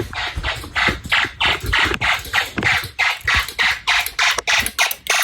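Snap Circuits fire alarm horn sounding in rapid, evenly spaced pulses, about three to four a second, during an alarm test.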